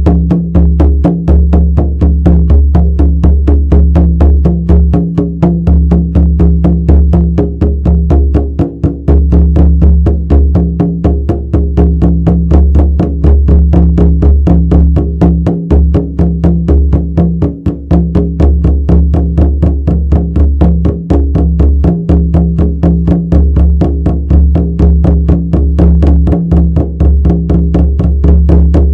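Shamanic frame drum beaten in a fast, steady, even rhythm, each stroke ringing into a deep, sustained boom.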